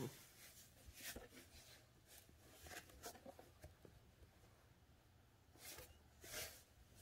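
Faint scuffling in a cardboard box as a cat wrestles with a hand: several brief scratchy scrapes and rustles of fur and paws against cardboard.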